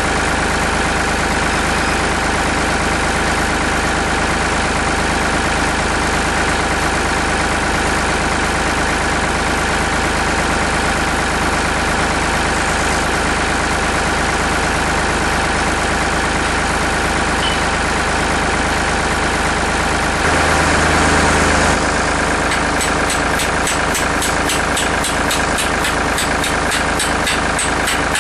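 Farm tractor engine running steadily at idle, briefly louder about twenty seconds in, with a fast even ticking, about four a second, running over it near the end.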